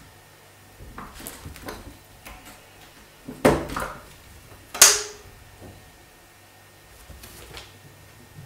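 A metal door knob rattling and clicking as a cat paws and twists it, with a loud knock about three and a half seconds in and a sharp metallic click with a brief ring near five seconds as the latch lets go and the door swings open.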